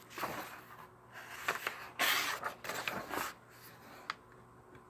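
Paper rustling and swishing as a page of a paperback picture book is handled and turned, loudest about two seconds in, followed by a short light click near the end.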